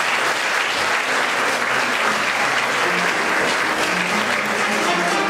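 A theatre audience applauding steadily: many hands clapping at once.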